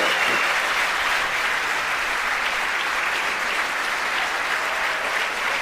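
A crowd applauding steadily, greeting a successful first-stage engine cutoff, stage separation and second-stage engine ignition.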